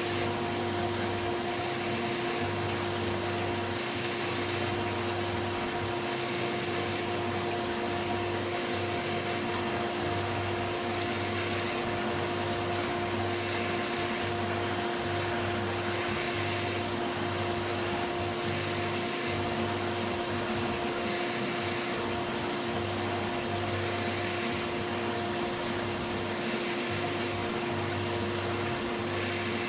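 CNC milling machine running a job: the spindle hums steadily while the end mill cuts in repeated passes, a short high-pitched cutting tone coming back about every two and a half seconds.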